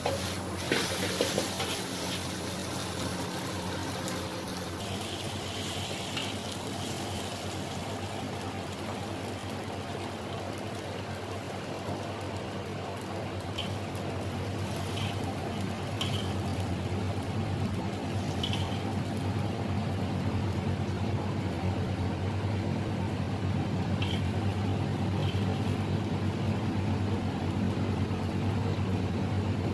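Steady hum of commercial kitchen equipment with a constant low drone, growing a little louder later on. In the first second or so a metal spatula clatters against a tossed carbon-steel wok, and a few light taps follow later.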